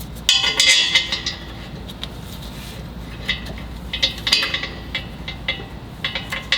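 Metal exhaust hardware clinking and jingling as a gasket, bolt and nuts are fitted by hand to a stainless axle-back's flange. There are two spells of ringing metallic clinks, one about half a second in and another from about three to five seconds in.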